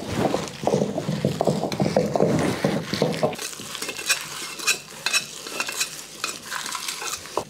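Heavy stone pestle turned in a stone mortar, crushing roasted dry red chillies and spices with a dense crackling crunch that eases off after about three seconds, followed by lighter scattered clicks.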